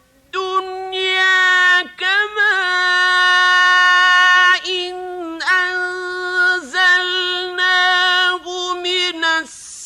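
A man's solo voice chanting Quran recitation in a melodic style, holding long drawn-out notes with ornamented turns, broken by short breaths.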